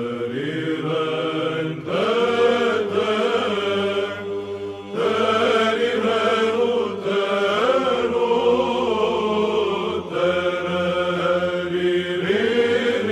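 Byzantine chant: a sung melody moving in phrases over a steady held drone (ison), with short breaks between phrases.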